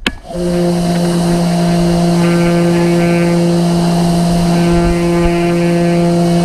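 A click, then a Ryobi pressure washer starts up about a quarter second in and runs with a steady motor hum under the loud hiss of its water spray.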